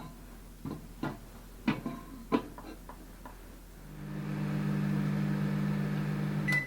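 A few clicks and knocks as a microwave oven is shut and set, then about four seconds in the microwave oven starts running with a steady hum, with no crackle of arcing from the foil inside the resin block. A short beep sounds as it stops near the end.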